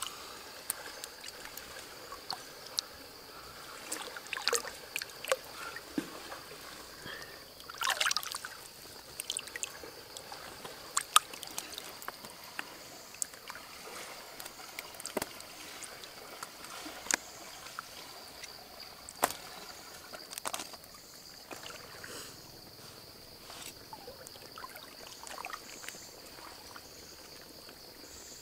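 Shallow stream water trickling, with scattered splashes and small knocks as hands work in the water. A louder splash comes about eight seconds in, and a steady high-pitched whine runs underneath.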